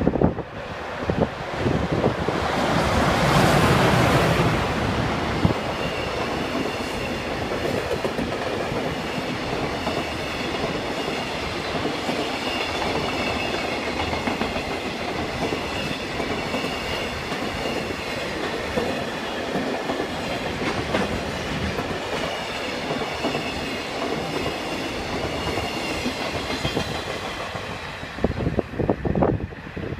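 A freight train running through a station: a loud rush as the locomotive passes a few seconds in, then the steady rumble and clatter of container wagons on the rails.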